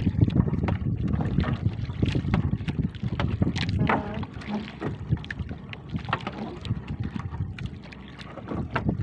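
Wind buffeting the microphone over open water, with scattered knocks, clicks and rustles of a fishing net being handled over the side of a small outrigger boat.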